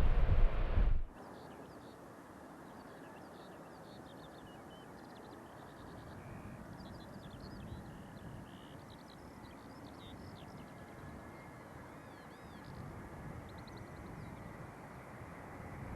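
A loud rushing roar that cuts off abruptly about a second in. After it, small birds chirp and trill repeatedly in short high calls over a faint steady hiss.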